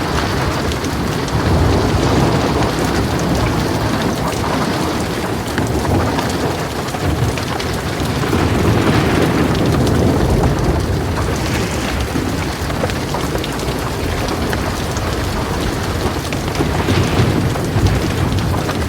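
Heavy rain pouring steadily, with low thunder rumbling underneath and swelling louder a few times.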